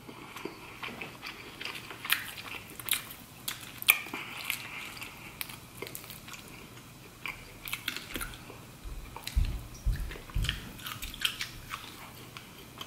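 Close-miked chewing and wet mouth sounds from eating buttery lobster and shrimp, with irregular crackles and clicks as shellfish shell is pulled apart by hand. A few low thumps come about nine to ten and a half seconds in.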